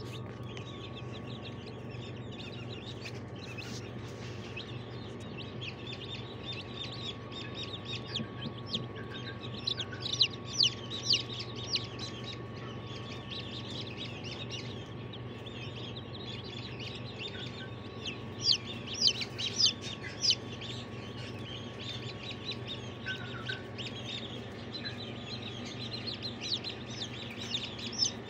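A brood of newly hatched chicks peeping: short, high chirps that come in busy runs about ten and about nineteen seconds in, over a steady low hum.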